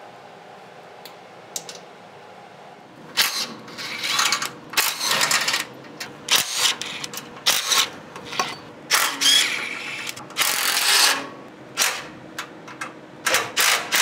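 Hand ratchet wrench clicking in short, irregular strokes, starting about three seconds in after a few faint ticks.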